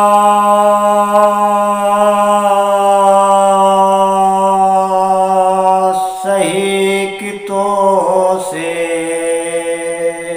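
A man singing a Punjabi Sufi kalam alone with no instruments, holding one long steady note for about six seconds. Just after halfway his voice breaks into a few quick wavering notes, then settles into a second long held note.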